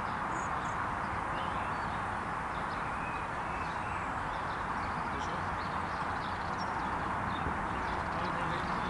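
Steady outdoor background noise, an even hiss, with a few faint distant ticks and no distinct event.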